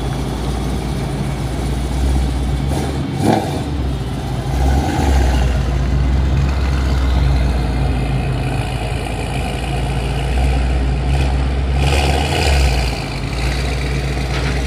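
A vehicle's engine running at low speed close by, its note swelling and easing as it is driven, with one short clunk about three seconds in.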